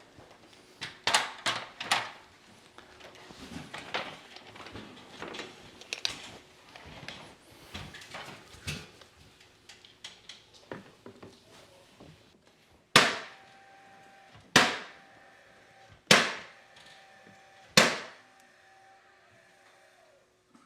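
Irregular knocking and rustling from handling a large PVC window trim piece, then four sharp strikes about a second and a half apart, each ringing out briefly.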